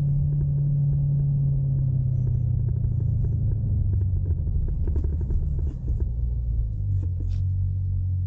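6.4-litre HEMI V8 of a Dodge Durango SRT 392 with an aftermarket exhaust, a low steady rumble at light throttle whose pitch sinks slowly as the revs drop, then holds lower near the end.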